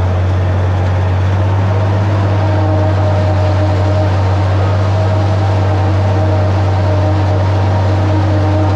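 International 1256 tractor and pull-type New Holland 790 forage harvester running steadily while chopping standing corn. A constant deep drone with a fainter, steady higher hum above it.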